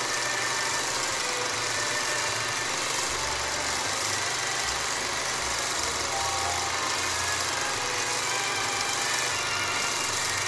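Steady mechanical whirr under a constant hiss, with a low hum that swells and fades unevenly.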